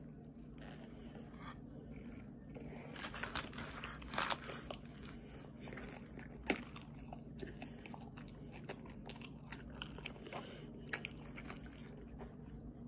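A person biting into and chewing a crispy breaded chicken sandwich close to the microphone, with scattered crunches, a cluster of the loudest about three to four seconds in and one sharp crunch a couple of seconds later.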